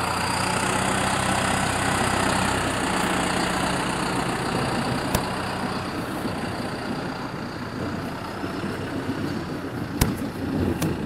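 Farm tractor engine running steadily at low revs, its hum fading a little and turning rougher in the second half. Two sharp clicks cut across it, about five and ten seconds in.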